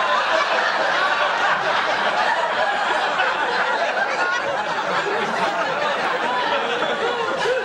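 Studio audience laughing, one long unbroken wave of laughter from many people at once.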